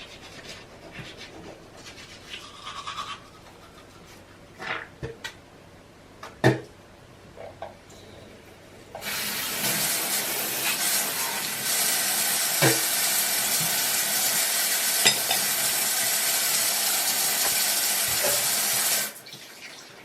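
A water tap turned on, running steadily for about ten seconds, then shut off suddenly. Before it come a few scattered knocks and clicks.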